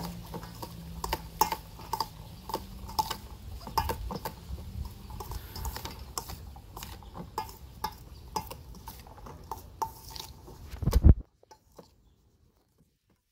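Metal spoon clinking and scraping in a stainless steel mixing bowl as chunky mango salsa is stirred, with short bright clinks at an uneven pace of one or two a second. A heavier knock comes about eleven seconds in, then the sound cuts off suddenly.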